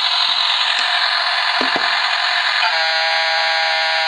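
Battery-powered bump-and-go toy cruise ship's sound chip blaring a harsh, distorted electronic buzz through its small speaker, with a couple of light knocks near the middle. About two-thirds of the way through it switches to a steady horn-like tone.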